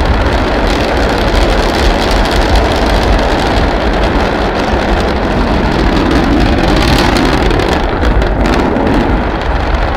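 Sound-designed rendition of the rocket engines of Perseverance's descent stage: a loud, steady, dense rushing rumble, heaviest in the low end.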